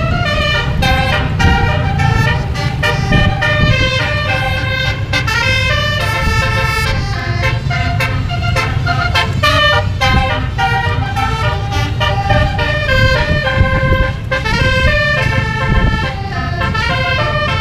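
Indonesian bus's basuri telolet horn playing a melody in quick stepping multi-tone notes, over the low rumble of the bus engine.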